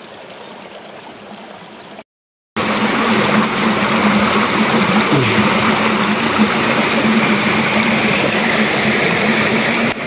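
Steady rush of a mountain stream running over rocks. It cuts out briefly about two seconds in, then comes back much louder and closer.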